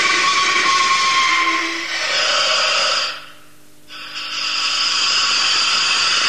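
Clément–Desormes siren sounding: gas flow between its two plates sets the lower plate vibrating against the upper one, giving a loud, sharp, hissing whistle with several steady tones. It cuts out for most of a second about three seconds in, then starts again.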